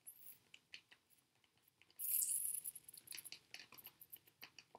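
Faint scattered clicks of steel scissor blades worked against paper on a table, with a short scrape about two seconds in.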